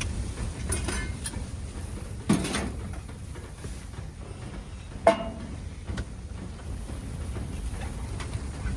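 Blizzard wind rumbling steadily against a tent, with a few sharp knocks and clatters from handling gear. The loudest knock comes about five seconds in and has a short ring.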